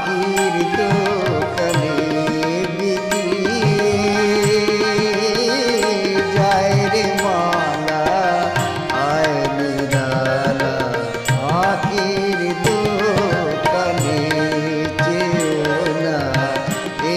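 Bengali Nazrul song accompaniment: sustained harmonium chords and a steady tabla rhythm under a melody line that slides between notes.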